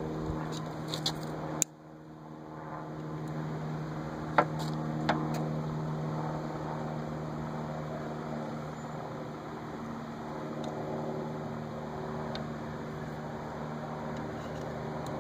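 A few sharp metal clicks and snaps as a new trunk gas-lift strut is worked onto its mounting studs, over a steady low hum.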